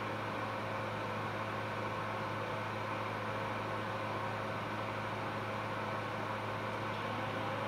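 Steady electrical hum with an even fan-like hiss from running surgical equipment, unchanging throughout.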